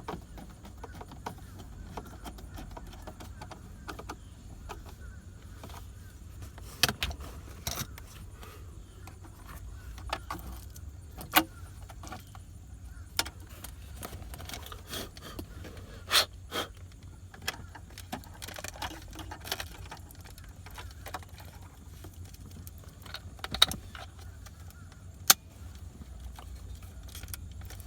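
Plastic console trim and small parts being handled and fitted by hand: scattered sharp clicks and knocks at irregular intervals, a handful of them louder, over a steady low hum.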